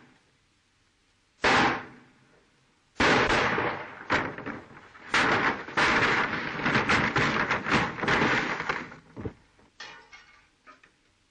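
Revolver gunfire in a shootout: a single shot about a second and a half in, then a rapid barrage of many shots from about three seconds in, thinning to a few faint cracks near the end.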